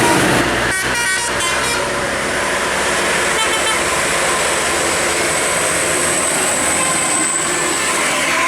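A bus running past with its telolet musical air horn sounding over the loud, steady engine and road noise.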